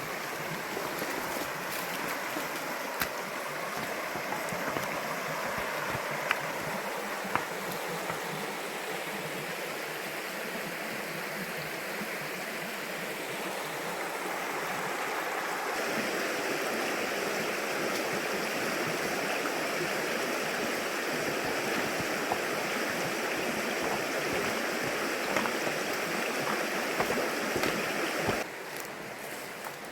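Rushing water, a steady hiss that becomes brighter about halfway through and changes abruptly near the end, with a few faint clicks.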